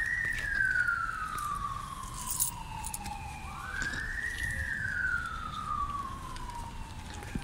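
Siren wailing in a repeating cycle. Each cycle rises quickly and then falls slowly, about every four seconds.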